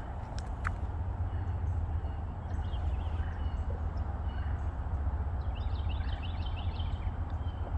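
Birds chirping over a steady low rumble, with a quick run of high chirps about six seconds in.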